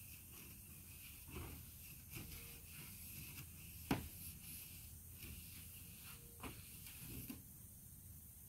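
Faint scratching of a long-handled brush scrubbing clear corrugated plastic greenhouse panels, with scattered light knocks, the sharpest about four seconds in. The scrubbing stops about a second before the end.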